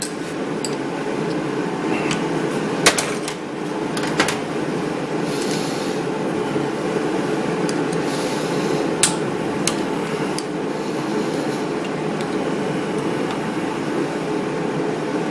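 Screwdriver tips prying a retaining clip around the pinion gear of a Briggs & Stratton electric starter, giving a few sharp metallic clicks scattered through. A steady machine hum runs underneath.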